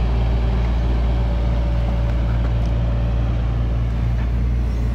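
Takeuchi TB325R mini excavator's diesel engine running steadily with a deep hum while the machine digs and slews. A faint steady whine sounds over it for a couple of seconds in the middle.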